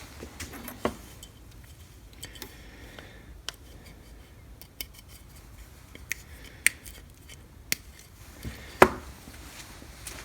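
Sharp metallic clicks and clinks from handling a metal electric strike and tools while mounting it for disassembly, about one every second, with a louder knock near the end.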